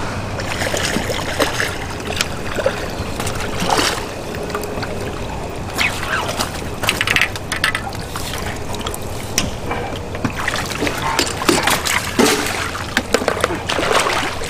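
Water splashing as a hooked fish is drawn to the surface and into a landing net near the end, over faint background chatter.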